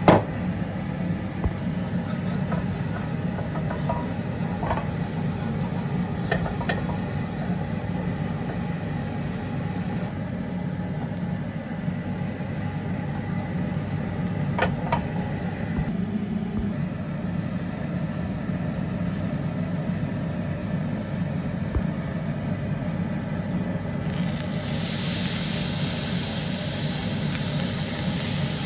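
Steady low engine hum, with a rushing hiss joining near the end.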